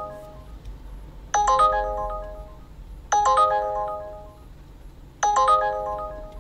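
Uber Driver app's incoming trip-request alert ringing from a phone: a chime of several quick notes that ring on and fade, repeating about every two seconds while the request waits to be accepted or declined.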